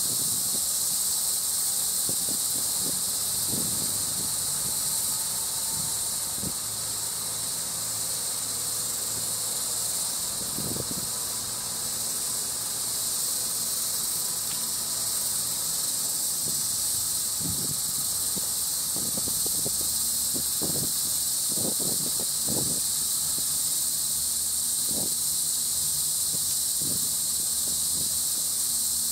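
A steady, high-pitched insect chorus that does not let up, with faint scattered low knocks and rustles underneath.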